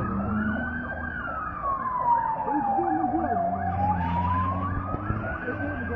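Emergency vehicle siren wailing slowly: it starts falling in pitch about a second in, bottoms out about three and a half seconds in, then rises again, with a faster warbling siren tone beneath it.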